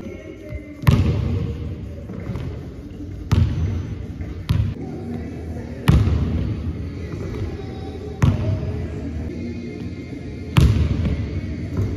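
Basketball hitting a hardwood gym floor in single hard bounces, about six sharp impacts spaced irregularly one to two and a half seconds apart, each echoing through the large hall.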